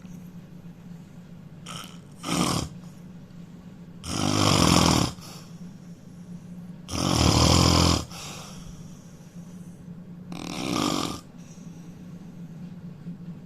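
A man snoring loudly in his sleep: four snores spaced about every two to three seconds, the middle two the longest and loudest.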